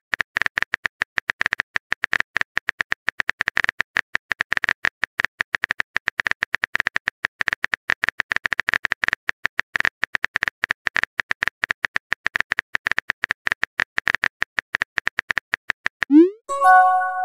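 Rapid phone keyboard tap clicks, many per second, as a text message is typed out letter by letter. About a second before the end they stop, and a short rising swoop and a bright chime follow as the message is sent.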